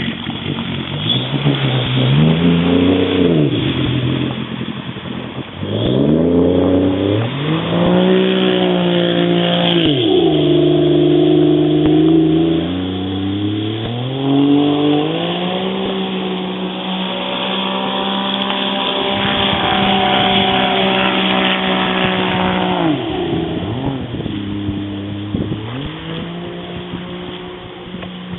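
Jet ski engine running under changing throttle, its pitch climbing and dropping again and again, holding high for several seconds in the middle before falling back.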